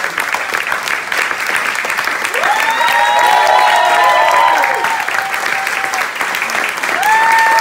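Audience applauding steadily, with several voices calling out in long drawn-out shouts about two seconds in and another shout near the end.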